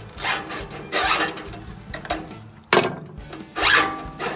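Several short, irregular rasping and rubbing strokes, about four, as the old choke cable is worked by hand. The sharpest one comes a little before the three-second mark.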